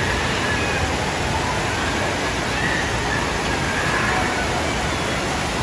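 Steady rush of water from a FlowRider surf simulator, its thin sheet of water pumped up the ride's slope, with faint voices behind it.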